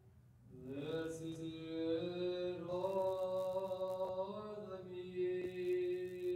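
A single voice chanting a Greek Orthodox funeral hymn. It comes in about half a second in with a rising slide, then sustains long held notes that move slowly from pitch to pitch.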